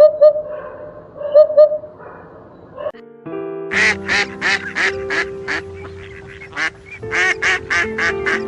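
Short animal calls, two quick pairs in the first two seconds. Background music starts about three seconds in, with a fast run of repeated short calls over it.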